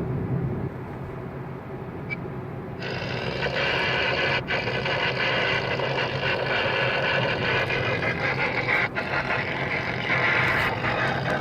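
Engine and road noise inside a moving vehicle: a steady low hum under a wide rushing noise that gets louder about three seconds in and stays up.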